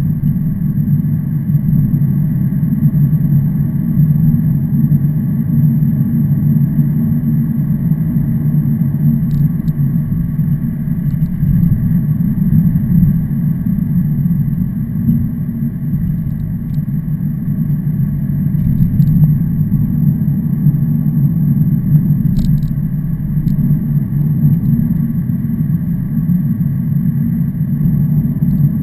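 Steady low rumble of a motor vehicle's engine and road noise, unchanging in pitch and level, with a few faint ticks.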